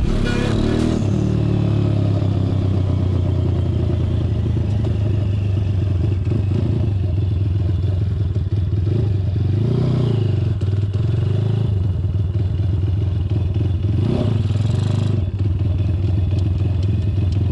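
Honda Dax minibike's four-stroke single-cylinder engine running under way through an aftermarket OVER exhaust, a steady exhaust note with the revs briefly rising and falling twice partway through.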